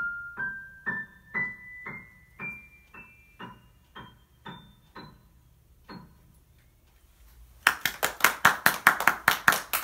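Piano playing a slow rising line of single notes, about two a second, growing fainter as the piece closes. Near the end, hands clapping in applause.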